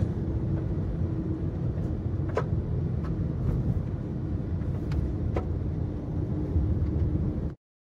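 Car driving along a smooth paved road, heard from inside the cabin: steady engine and tyre rumble with a faint hum and a few light clicks. The sound cuts off suddenly near the end.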